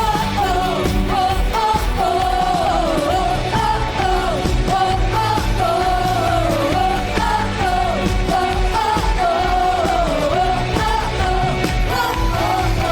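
Live worship band playing an upbeat song: drums and bass under a bending lead melody line.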